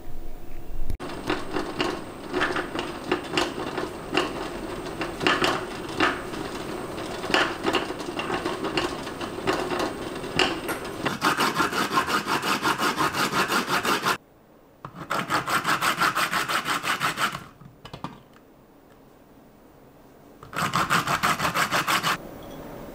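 Green yuzu peel scraped back and forth on a box grater: uneven rasping strokes at first, then fast, even strokes in spurts, broken by a short pause and then a longer one before a last burst.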